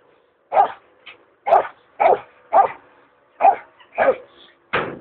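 Belgian Malinois giving a guard bark at a decoy in a bite suit, the hold-and-bark of French Ring: about eight sharp barks, roughly two a second, one of them short and weak and a brief pause about three seconds in.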